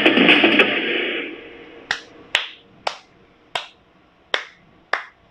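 Pop music fading out, followed by slow hand claps, about six of them, roughly one every half second to second.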